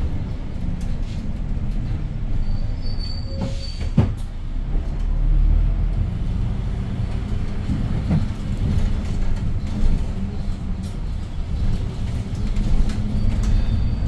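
Cabin sound of a Hyundai New Super Aero City city bus with its C6AF CNG engine: a steady low rumble with light squeaks and rattles, and one sharp click about four seconds in.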